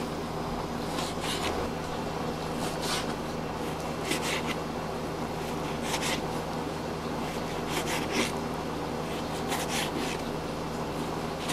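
Fabric rubbing against the recording device: short scratchy rustles every second or so, some in quick pairs and triples, over a steady low hum.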